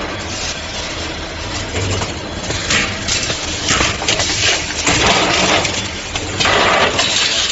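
Wire-bending machine running: a steady motor hum with four short hissing bursts in the second half.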